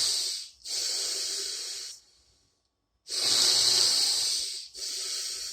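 A man breathing heavily and audibly: four long breaths in two pairs, each a louder breath followed by a slightly quieter one, with a pause of about a second between the pairs.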